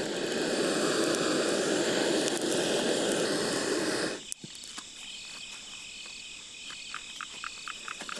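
A steady rushing roar as the campfire is relit, cutting off suddenly about four seconds in. Crickets then go on chirping on their own.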